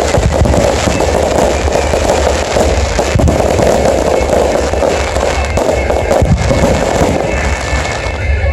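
Aerial fireworks going off in a dense, continuous barrage: many overlapping bangs and crackles with a deep rumble, with no pause.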